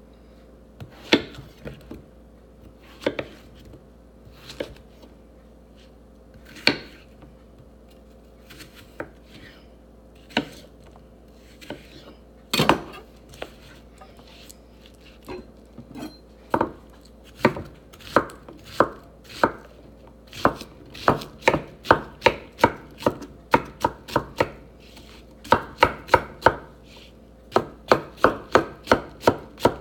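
Kitchen knife chopping through a firm vegetable on a wooden cutting board: scattered single cuts at first, then a steady run of about two to three chops a second in the second half as the pieces are diced.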